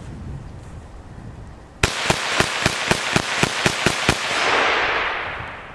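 A CZ 512 semi-automatic .22 WMR rimfire rifle fires a rapid string of about ten shots, about four a second, its action cycling itself between rounds. The shots are followed by a rush of noise that swells and fades.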